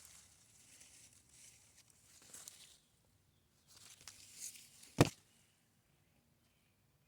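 Footsteps and rustling through plants, with uneven bursts of brushing, then a single sharp knock about five seconds in.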